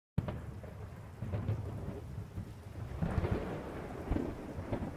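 Low rumbling thunder over a steady rain-like hiss, swelling louder about three seconds in.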